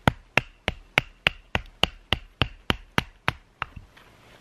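Pine being split into kindling with rapid, even strikes, about three a second, each with a short ringing tail; the strikes stop near the end.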